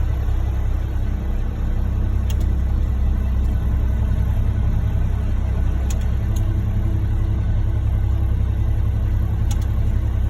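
Vehicle engine running steadily with a low rumble and a few faint ticks.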